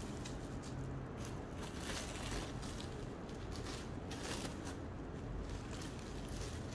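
Bubble wrap crinkling and rustling in irregular bursts as it is folded and pressed around a cardboard box.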